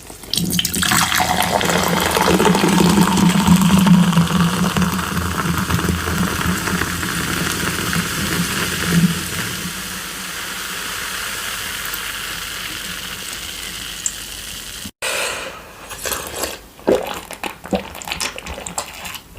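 A loud, steady rushing, water-like noise for about fifteen seconds, then after a sudden break a run of short clicks and taps.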